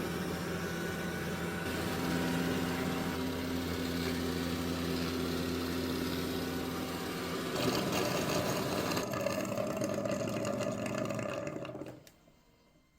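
Dreame L20 Ultra robot vacuum running with a steady motor hum and whine, changing pitch and tone a few times, then shutting off about 12 seconds in.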